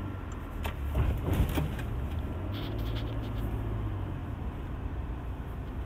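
Cab interior sound of a 2020 Toyota Hilux pickup under way: its 2.8-litre 1GD-FTV turbodiesel inline-four and the road give a steady low drone, with a few sharp clicks about a second in.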